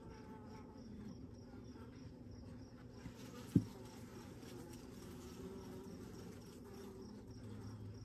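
Honeybees buzzing in a faint, steady hum from a colony in an open Layens horizontal hive as a comb frame covered in bees is lifted out. A single sharp knock sounds about three and a half seconds in.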